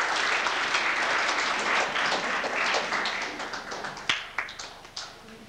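Audience applauding, a dense patter of many hands that thins out to scattered claps and fades away near the end.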